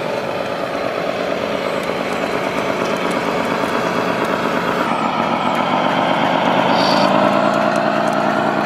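Simulated truck diesel engine sound from a radio-controlled scale truck's sound module, running steadily and growing louder as the truck approaches, its pitch lifting slightly in the second half.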